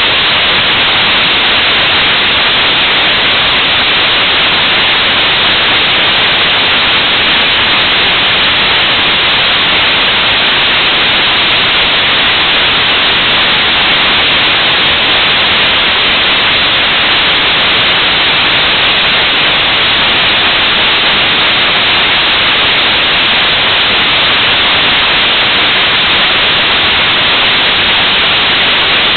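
Skyroot RAMAN upper-stage hypergolic rocket engine, burning UDMH and N2O4, firing continuously on a test stand: a loud, steady hissing roar that does not change.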